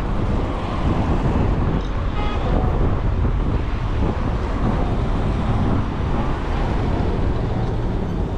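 Road traffic: cars and minibuses driving past close by on a busy city street, a steady rumble with wind buffeting the microphone.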